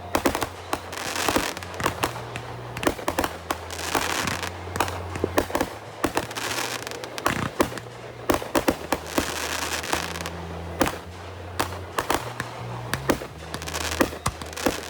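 Fireworks show: many sharp bangs and pops in quick succession, with crackling bursts between them and music playing underneath.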